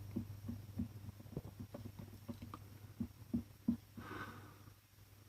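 Soft, irregular taps and small knocks of a soldering iron tip being worked over a cracked plastic bottle while it is welded, over a steady low hum, with a breath near the end.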